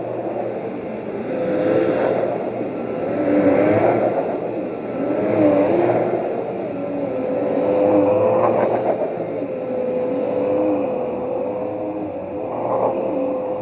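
Vacuum cleaner running: a steady motor whine with a rushing noise that swells and fades every two seconds or so, its lower pitch wavering as it does.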